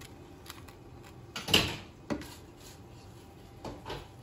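A few light knocks and clatters of kitchen handling, the loudest about a second and a half in, as a plastic spatula sets a strip of bacon onto toast on a paper plate.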